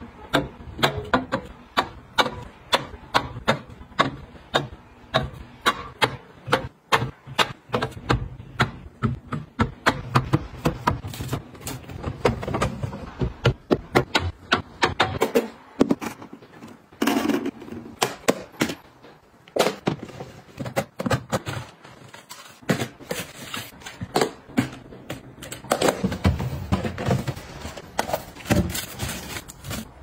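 Cans, clear plastic storage boxes and packaged food being handled and set down on refrigerator shelves: a quick run of clicks, taps and plastic knocks, often about two a second.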